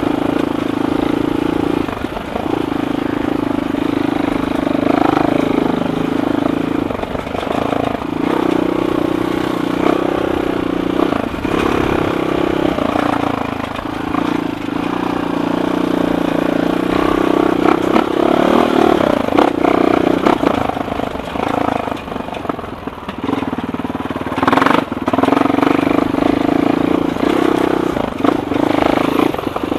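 Suzuki LTR 450 quad's single-cylinder four-stroke engine running at low speed, the throttle opening and easing off every few seconds as it crawls over rough ground. There is one sharp clack late on.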